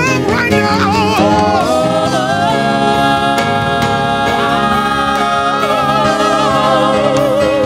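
Gospel worship music: voices singing long, held notes with vibrato over sustained keyboard chords.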